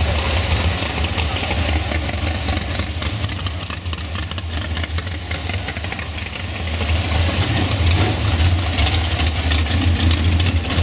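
Drag-prepared muscle car engines running at low speed as a green 1969 Chevelle rolls past, followed by a yellow Chevy Vega. The deep rumble dips in the middle and grows louder again as the second car draws near.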